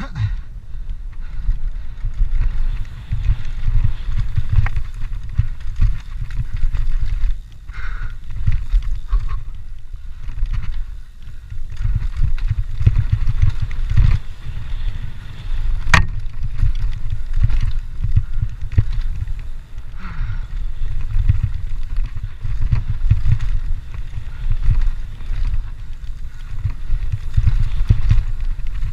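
Cross-country mountain bike riding fast down a dirt singletrack. There is a continuous, uneven low rumble from the tyres and trail vibration, with wind on the camera microphone. Small rattles and knocks come from the bike over bumps, and one sharp knock comes about halfway through.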